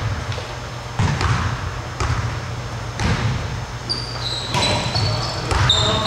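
Basketball bouncing on a hardwood gym floor, the bounces roughly a second apart, with short high sneaker squeaks on the floor in the second half.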